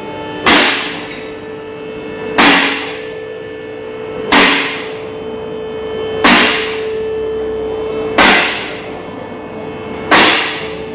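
Hammer blows on metal, six evenly spaced strikes about two seconds apart, each fading with a brief ringing. A steady hum runs underneath.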